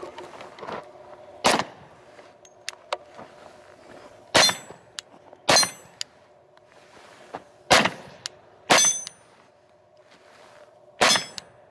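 Glock 10mm pistol firing six single shots of full-power 10mm ammunition at an uneven, unhurried pace, one to two seconds apart.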